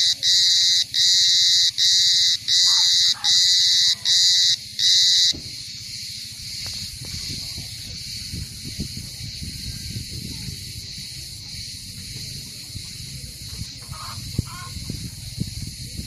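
A cicada singing: a loud, high buzzing song broken into regular pulses a little more than one a second, which stops suddenly about five seconds in. After that a fainter, steady high buzz carries on.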